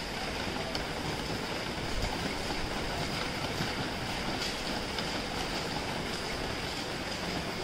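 Steady rain: a dense, even hiss with faint scattered taps of drops.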